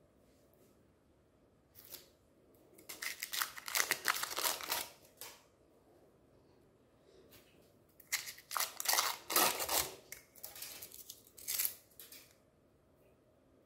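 Foil wrapper crinkling and tearing as it is peeled off an umbrella-shaped chocolate bar, in two spells of rustling: one about three seconds in lasting a couple of seconds, and a longer one from about eight seconds in.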